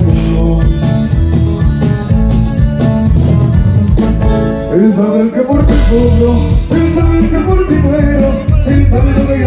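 Regional Mexican band playing live, with strings and a full low end, and a voice singing over it; the bass drops out briefly about halfway.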